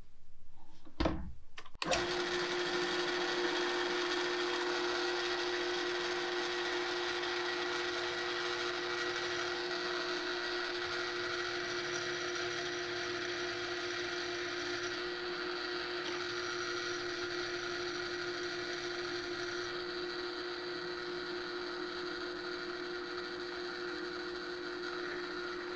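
Two short knocks about a second in, then a drill press motor starts and runs with an even hum.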